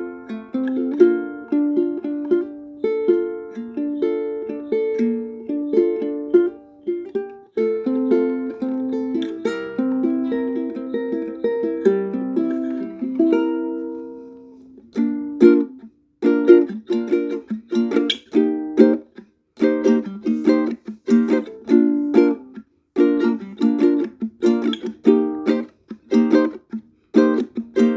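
Ukulele played solo: a fingerpicked melody over chords for the first half, then after a brief pause, rhythmic strummed chords.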